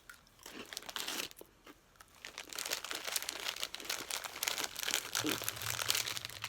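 Snack packet crinkling and crunchy fry-shaped crisps, like prawn crackers, being crunched, in quick irregular crackles. There is a short pause about a second and a half in.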